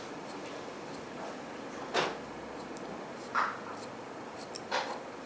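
Grooming scissors cutting a puppy's facial fur: three crisp snips about a second and a half apart, with fainter light clicks of the blades in between.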